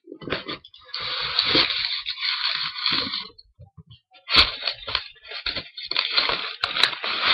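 Packaging crinkling and crackling as it is handled and pulled off a newly arrived item: one long stretch of rustling, a short pause about halfway through, then more crinkling with sharp crackles.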